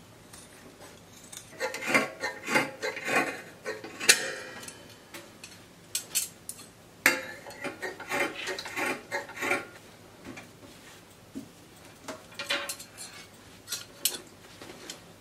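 Fabric scissors snipping through cotton Ankara wax-print fabric folded into four layers, in runs of quick cuts with short pauses between them.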